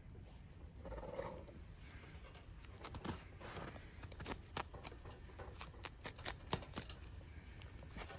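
A frozen blue paper towel crackling and snapping as it is handled in extreme cold: a run of sharp, dry clicks that grows denser after a few seconds.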